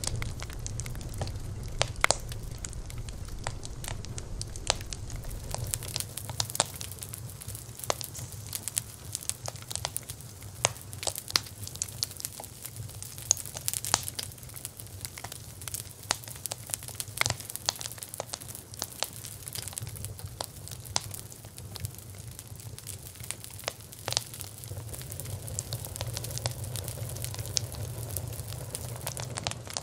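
Campfire burning: wood crackling and popping in irregular sharp snaps over a steady low rumble and hiss of the flames.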